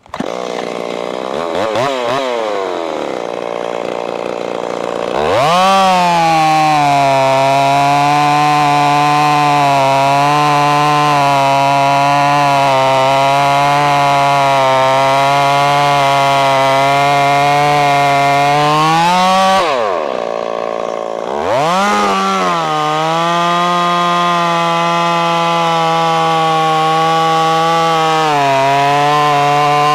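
Ported Stihl 026 two-stroke chainsaw with a 28" bar, blipped for a few seconds, then held at full throttle cutting into a white oak log, its pitch sagging slightly under load. It drops briefly to idle about twenty seconds in, then goes back into the cut. It is fitted with a replacement chain after the old one would no longer bite, possibly from hitting metal in the tree.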